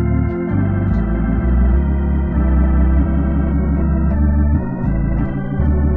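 Hammond A100 organ playing a run of sustained gospel chords in the key of G over pedal bass, changing chord every second or so.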